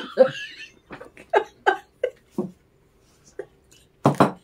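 A woman laughing in short, separate bursts, stifled behind her hand, with a louder burst of laughter near the end.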